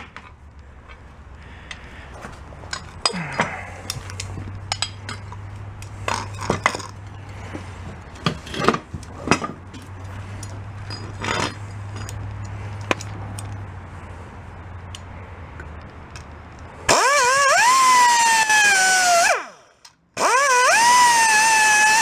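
Pneumatic cut-off tool cutting steel in two runs of about two seconds each: a loud high whine whose pitch dips as the wheel bites and recovers as it eases off. Before that come a low steady hum and scattered clinks and knocks of metal parts being handled.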